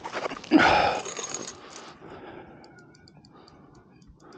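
A hooked silver trevally thrashing and splashing at the water's surface beside the landing net, loudest about half a second in and dying away by two seconds. Faint, quick clicks from the spinning reel follow near the end as line is wound in.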